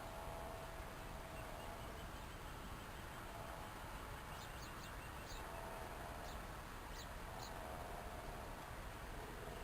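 Guinea pigs calling: faint, repeated low pitched calls recur throughout, with a cluster of short, high, chirp-like squeaks about halfway through.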